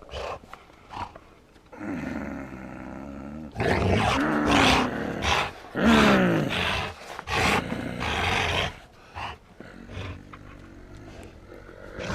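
A dog growling and grumbling in play, in several drawn-out vocal bouts, some falling in pitch, with short clicks in between.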